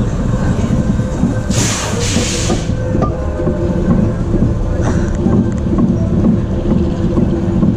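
Vekoma Boomerang coaster train being hauled backward up the lift incline: a steady low rumble and rattle of the wheels and lift, with a short hiss about a second and a half in.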